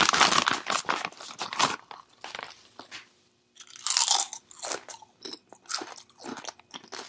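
Doritos tortilla chips crunched close to the microphone. The foil chip bag crinkles as a hand reaches in at the start, then a chip is bitten about four seconds in and chewed with a run of sharp crunches.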